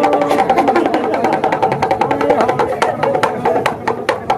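Damru, the madari's small hand-twisted pellet drum, rattled in a quick, even clicking beat, with a tune of held notes under it.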